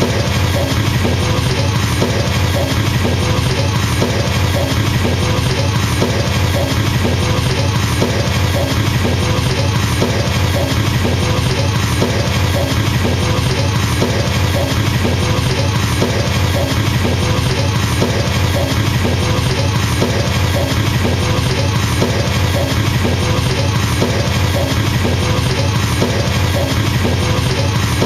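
Drum kit with a double bass drum pedal playing an unbroken, very fast stream of kick-drum strokes, the 'machine gun helicopter' pattern, with a short pattern on the rest of the kit repeating about once a second on top.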